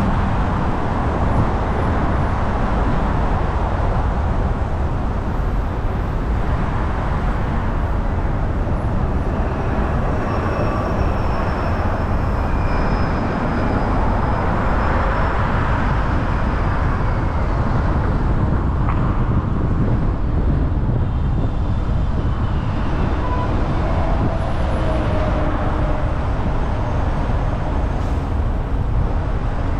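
Steady road noise from a car driving at speed: a constant low rumble of tyres and wind. Faint high whines drift in and out.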